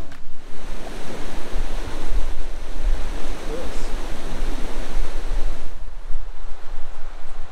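Fast-flowing river rushing over rapids, with gusts of wind rumbling on the microphone. About six seconds in the rush turns softer and duller.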